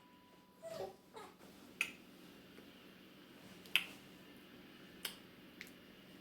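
Close-up eating sounds of fufu and ogbono soup: a few sharp, wet mouth clicks and smacks spread out over several seconds, with two short downward-gliding mouth sounds about a second in.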